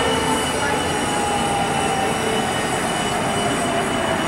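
Eurocopter Dauphin helicopter running on the ground with its rotor turning: a loud, steady rush of turbine and rotor noise with a thin high turbine whine, and a lower whine that slowly falls in pitch.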